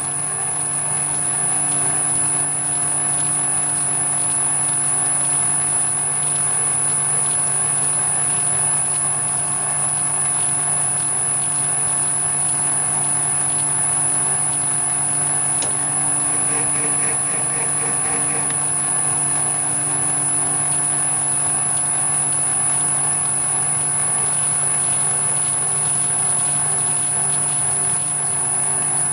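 Metal lathe running steadily under power while single-point screw-cutting a 16 TPI UNC thread on an EN16T steel stud: a constant motor and gear-train hum with a steady high-pitched whine over it.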